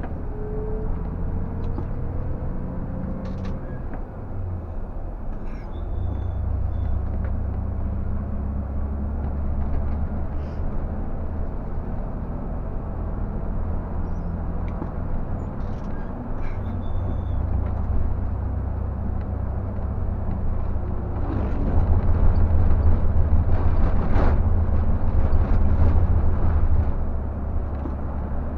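Scania K124 360 coach's six-cylinder diesel engine and road noise heard from the driver's cab while driving: a steady low drone that dips briefly about four seconds in and again around the middle, and grows louder for a stretch near the end.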